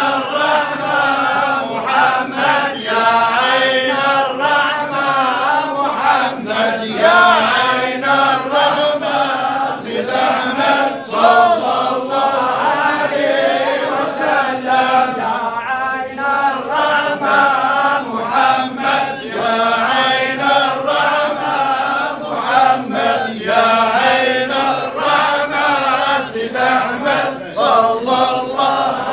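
A group of men chanting together in unison: a Sufi devotional chant of the kind sung at a zaouia, a continuous stream of many male voices.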